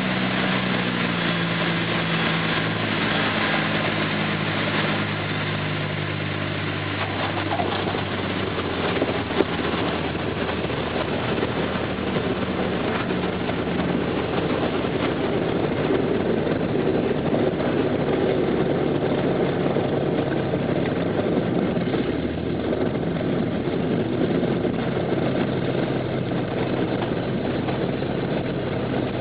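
Aircraft engine running, its tone dropping in pitch over the first seven seconds or so as power comes off, then running on steadily under a constant rush of noise. A single brief click about nine seconds in.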